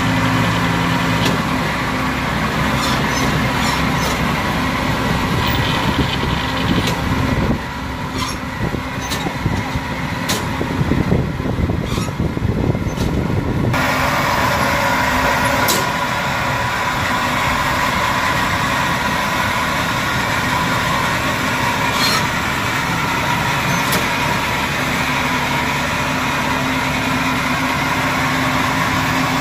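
Engine of a small tracked rice transporter running steadily as it crawls down a bank onto a steel barge, with scattered sharp metallic knocks. The sound turns rougher and noisier for several seconds in the middle.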